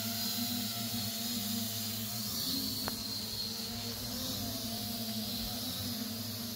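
Small quadcopter's electric motors and propellers humming steadily as it hovers, the pitch wavering slightly a couple of times as the motors adjust speed.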